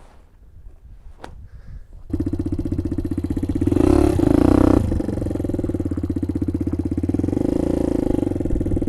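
Small 50cc motorbike engine comes in abruptly about two seconds in, is revved up briefly near the middle, then runs steadily.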